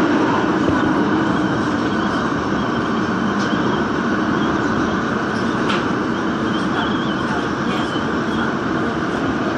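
Daejeon Metro Line 1 train running through a tunnel: a steady, loud rumble of wheels on rail. It is loudest at the start, as a train passes on the other track, and then eases slightly.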